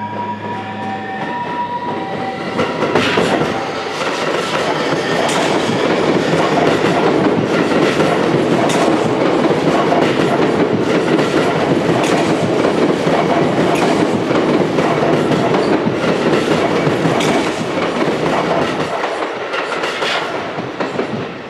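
Sotetsu 20000 series electric train running past close by: a loud rumble with repeated wheel clacks over the rail joints as the cars go by, tapering off near the end. A rising electric motor whine fades out in the first two seconds.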